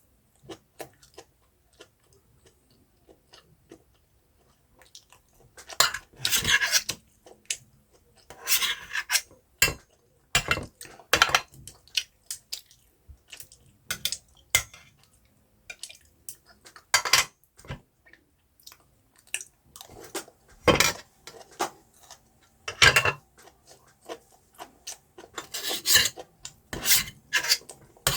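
Close-miked eating sounds: irregular crunches, clicks and rasping scrapes, with a few longer scraping stretches, like food being chewed and utensils rubbing against a dish.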